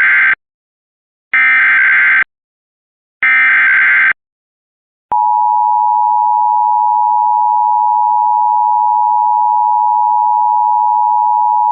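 Emergency Alert System alert signal. First come short bursts of digital SAME header data tones, each about a second long with a second's gap: the tail of one, then two more. About five seconds in, the steady two-tone EAS attention signal starts and holds.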